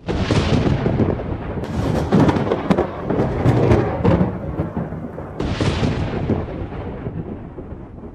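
Thunder from a close lightning strike: a rumble with sharp crackles about two seconds in, rolling on and slowly fading, with a second swell about five and a half seconds in.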